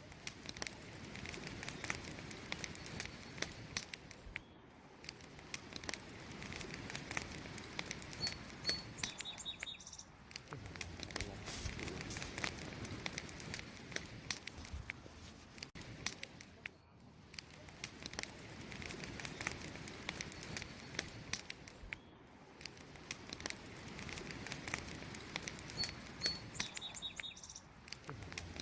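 Wood campfire crackling, with a dense stream of sharp pops and snaps over a soft hiss of burning. A brief high chirp comes twice, about eight seconds in and near the end.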